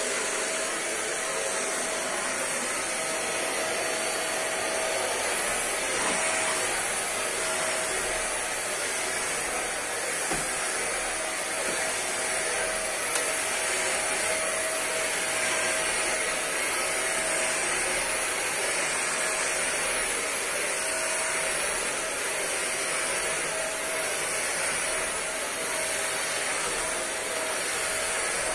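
Electric vacuum cleaner running steadily, with a constant whine over the rush of air. A couple of small knocks come through partway in.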